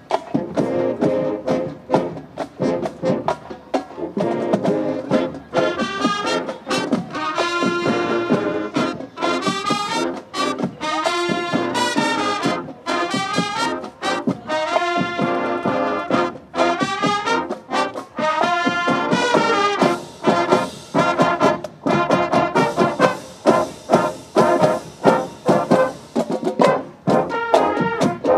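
Brass band music: horns play a tune over a steady drum beat.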